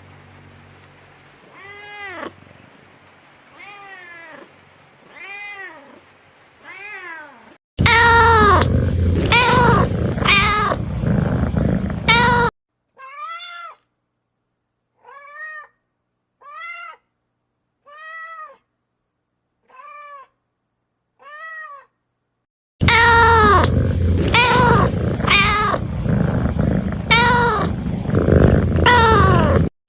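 Kittens meowing over and over, in several clips cut together: first faint meows, then loud meows over background noise, then a run of short, evenly spaced meows, then loud meows again.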